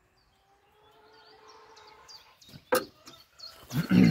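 Faint bird chirps, then a sharp click about two and a half seconds in and handling knocks near the end. The ignition lead's plug cap is being pushed into place by hand.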